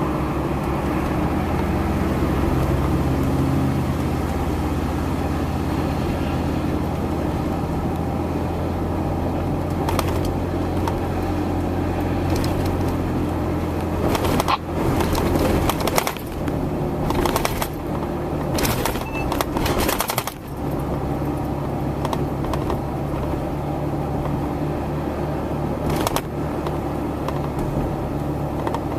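A motor running with a steady low hum. Irregular knocks and clatter come through it over the middle stretch.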